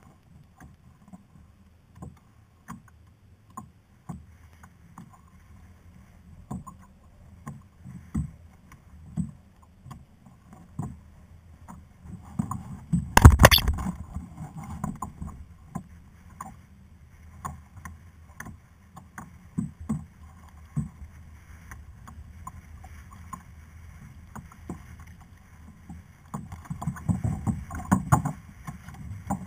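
A fishing kayak on the sea, with water lapping and slapping against the hull and scattered knocks on the boat. A louder clatter of knocks comes about thirteen seconds in, and another cluster near the end.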